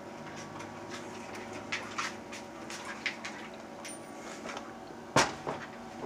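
Light clicks and taps of kitchen items being handled, with one sharper, louder knock about five seconds in, over a faint steady hum.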